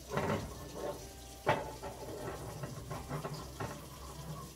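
A small saucepan of water being handled on a gas stove's metal grate: knocking and scraping, with one sharp clank about a second and a half in, then a run of lighter ticks and knocks.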